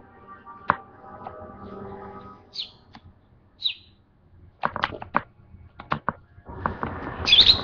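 Pet lovebird giving short, high chirps: two single ones a few seconds apart, then a louder burst of chirps near the end. Several sharp clicks come in between.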